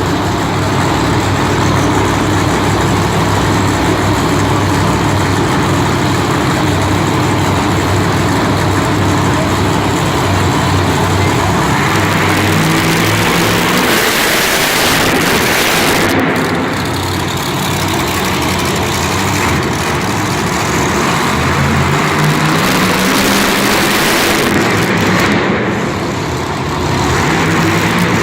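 Monster truck engine running loud and revving, its pitch stepping up and down, with brief easing of the throttle about two-thirds of the way in and again near the end.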